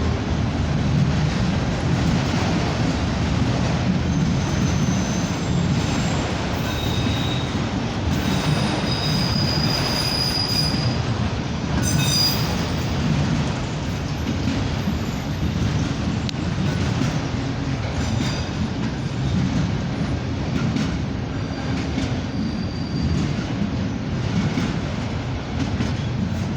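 Norfolk Southern freight train rolling past, a steady rumble of wheels on rail. Short high-pitched wheel squeals come and go, most of them in the first half.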